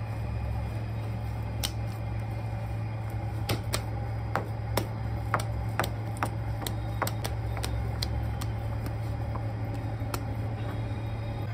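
Wet clay slapped and patted by hand on a wooden board, a dozen or so irregular smacks as a lump is kneaded and shaped, over a steady low machine hum.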